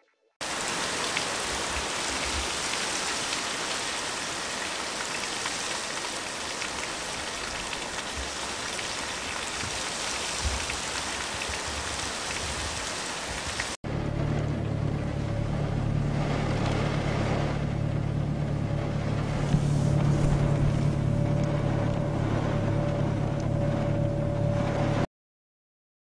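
Steady rain falling, an even hiss. About 14 s in it cuts to a second rain recording with a steady low hum under it. The sound stops abruptly about a second before the end.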